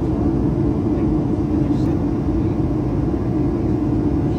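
Steady jet engine and airflow noise heard inside an airliner's cabin: a dense, even low rumble with no change in level.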